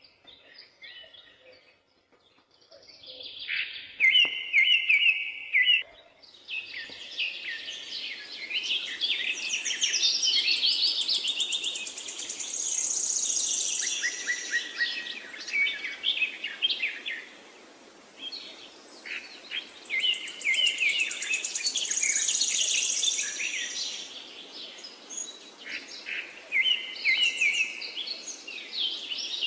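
A bird singing long phrases of rapid chirps and trills, with short breaks a couple of seconds in and again past the middle.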